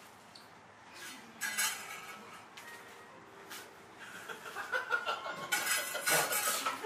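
Light clinks and clatter of dishes and utensils, a few separate clinks at first, growing busier over the second half.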